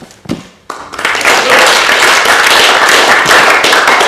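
A short knock, then an audience applauding: the clapping starts about a second in and goes on steadily.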